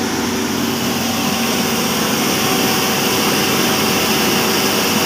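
A 40 hp belt-driven cattle feed pulverizer grinder running at full speed, a loud steady rushing with a constant hum in it.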